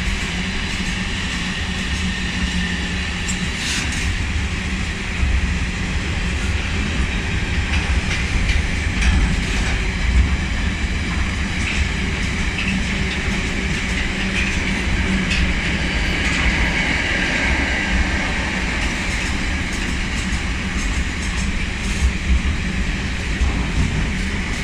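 Container wagons of a long freight train rolling past: a steady rumble of steel wheels on rail with an irregular clickety-clack of clicks and knocks as the bogies pass.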